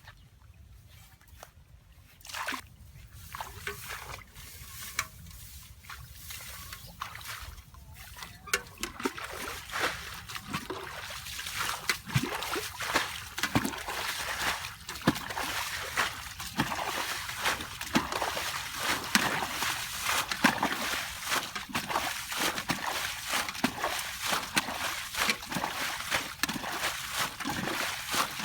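Water splashing and sloshing: a few separate splashes at first, then continuous, busier splashing from about eight seconds in that grows louder.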